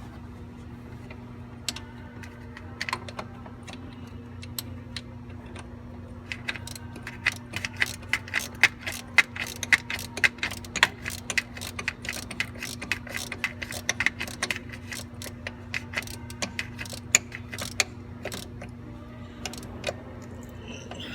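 Hand ratchet wrench clicking in a quick, irregular run of sharp metallic clicks, a few a second, lasting about twelve seconds, over a steady low hum.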